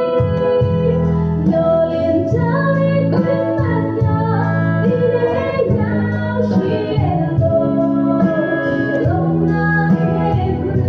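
Live song performance: a female voice singing a melody over guitar accompaniment, with long held notes.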